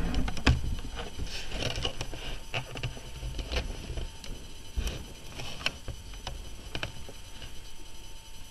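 Irregular knocks, thuds and scuffs as a dancer's body and a plastic chair with metal legs shift on a studio floor, with a louder thud about half a second in and another just before five seconds.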